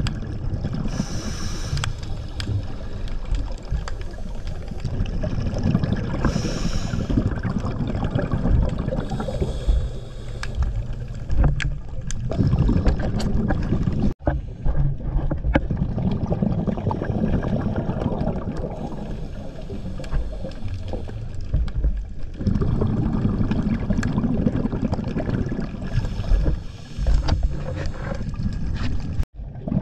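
Underwater sound through a GoPro's housing on a scuba dive: a steady low rumble, broken several times by short bursts of bubbling as the diver exhales through the regulator. The sound cuts out briefly twice.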